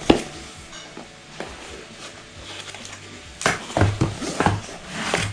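Packaging being handled during an unboxing: a sharp knock right at the start, then a cluster of knocks and rustles from about three and a half seconds in.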